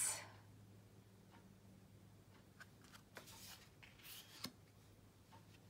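Faint handling of oracle cards: a couple of soft slides of card stock past the middle, the second ending in a light tap, over a low steady hum.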